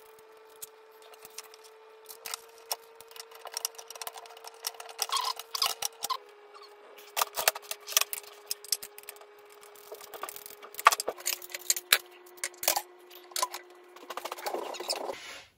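Aluminium antenna elements and plastic boom clamps clicking, knocking and rattling against each other and the worktop as a Yagi antenna is put together by hand. A faint steady tone sits underneath and drops in pitch a few times.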